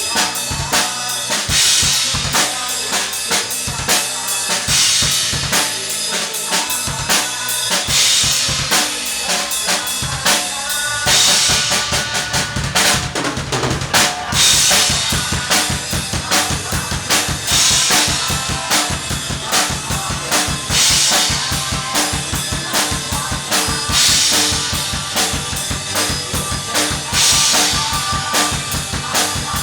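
A band playing a rock song, driven by a steady drum-kit beat of bass drum and snare. About eleven seconds in, the band fills out with a fuller, heavier bottom end.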